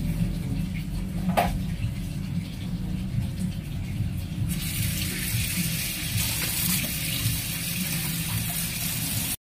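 Kitchen tap running into a stainless steel sink, water splashing over a red plastic chopping board being rinsed. The tap comes on about halfway through. A single light knock sounds about a second and a half in.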